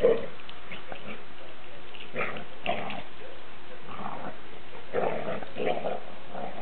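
Dogs, a German shorthaired pointer and a chocolate Labrador, growling and grunting in play as they wrestle, in short separate bursts that come more often near the end.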